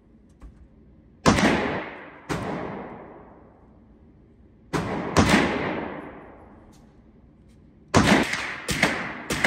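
Gunshots from neighbouring lanes of a shooting range, each ringing out with a long echo: four single shots in the first half, then a rapid string of about three shots a second starting near the end. Faint clicks of cartridges being pressed into a pistol magazine lie underneath.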